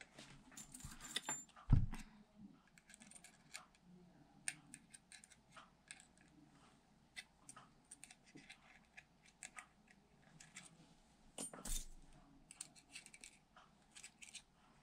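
Small metal construction-kit parts, perforated strips, nuts and bolts, clinking and clicking faintly as they are picked through and handled, with two louder knocks, one about two seconds in and one near twelve seconds.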